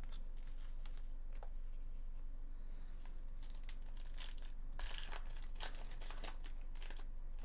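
Foil wrapper of a 2024 Bowman Chrome baseball card pack being torn open and crinkled in the hands. A few light clicks come first, then a run of sharp rips and crackles in the second half, loudest about five seconds in, over a steady low hum.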